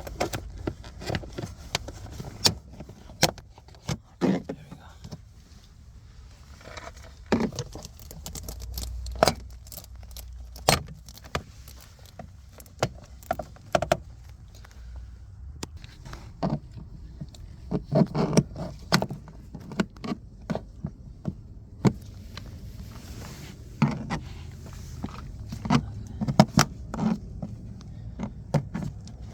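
Plastic interior car trim being worked loose by hand: irregular sharp clicks, snaps and light rattles of the panel, its clips and tools, in scattered bunches.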